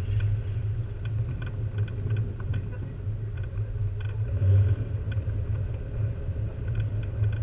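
Jeep driving along a snow-covered trail, heard from a hood-mounted camera: a steady low rumble of engine and tyres, with light, irregular ticks over it.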